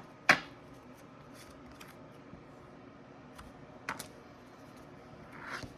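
Pokémon trading cards being handled and flipped through: a sharp click about a third of a second in, a smaller tick near four seconds, faint ticks between, and a short rustle near the end.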